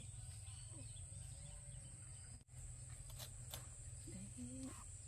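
Quiet outdoor background: a steady high-pitched tone and a low rumble throughout, with a few faint short calls.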